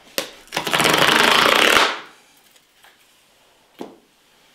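Perforated tear strip of a cardboard shipping box ripped open in one quick pull, a loud rapid rattling tear lasting just over a second. A light knock of the box follows near the end.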